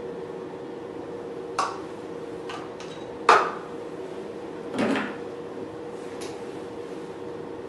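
Handling clatter: about six light knocks as a plastic bowl and tools are set down and picked up, the loudest about three seconds in, over a steady hum.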